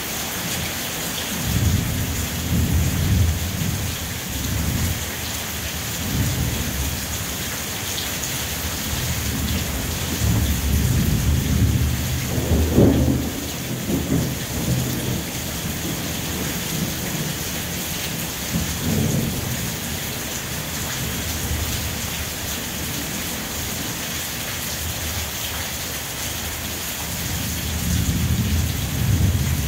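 Steady rain falling, with low rolling rumbles of thunder that swell and fade several times, the strongest about halfway through.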